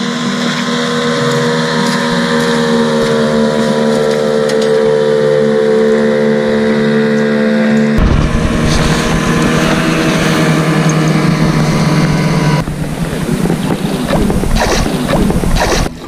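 Outboard motorboat engine running on a river, with a steady note that slowly sinks in pitch as a boat passes. About halfway through, the sound switches abruptly to the engine heard from aboard a moving boat. Near the end the engine drone gives way to rougher, uneven noise.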